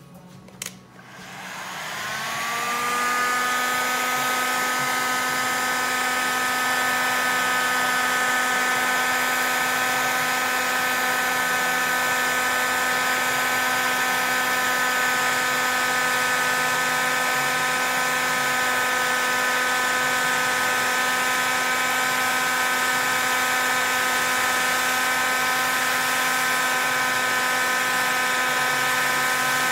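Heat gun starting up about a second in, its fan whine rising in pitch for a couple of seconds and then running steadily with a rush of hot air, aimed at the scored line around a glass champagne bottle to crack it along the score.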